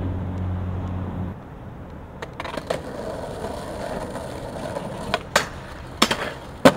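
A steady low hum for about the first second, then skateboard wheels rolling on asphalt with several sharp clacks as the board hits a low metal rail, the loudest clack near the end.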